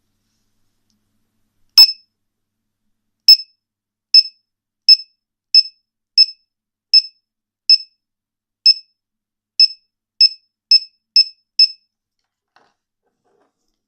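Buzzer of a 1S-8S lipo battery monitor and low-voltage alarm beeping: about fourteen short, high beeps, the first with a sharp click, spaced unevenly and coming faster toward the end.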